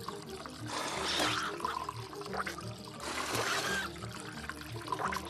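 Cartoon background music with a steady low beat, with swells of hissing noise and short chirps about a second in and again past three seconds.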